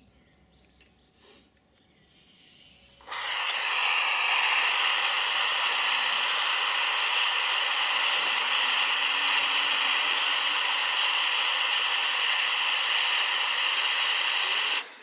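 Handheld gas blowtorch: gas hisses faintly for a moment, then the flame lights about three seconds in and burns with a loud, steady hiss. It cuts off suddenly just before the end.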